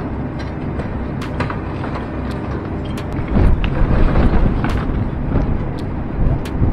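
Hydraulic excavator engine running under load while its demolition crusher bites into concrete blocks, with sharp cracks of breaking concrete. A louder stretch of crunching and falling rubble about halfway through.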